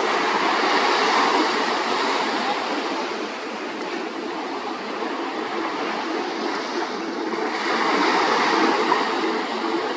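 Jet ski running across the water: a steady rush of water spray and motor noise that eases a few seconds in and builds again near the end.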